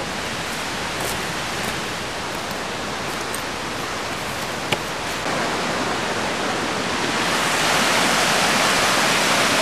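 Steady rushing of a mountain stream cascading over rocks, growing louder and brighter about six seconds in.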